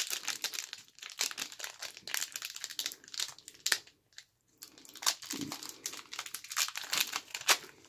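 Foil wrapper of a 1990-91 Skybox basketball card pack crinkling and tearing as it is pulled open, in a quick run of sharp crackles with a short pause about four seconds in and a louder snap near the end.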